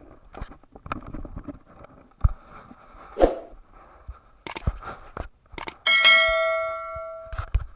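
Subscribe-button sound effect: a couple of sharp mouse clicks, then a bright bell ding about six seconds in that rings and fades over about a second and a half. Under it, faint scattered crunches of footsteps on stony ground.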